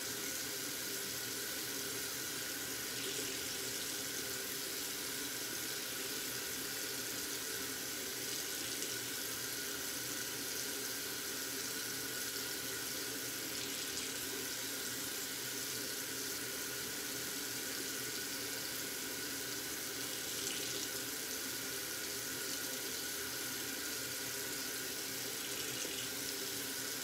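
Steady rushing noise with a few faint steady tones running through it, unchanging throughout.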